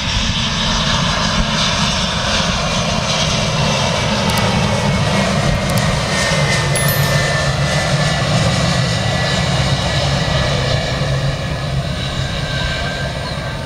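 Airliner engines running loud and steady, a whine over a deep rumble, easing off a little near the end.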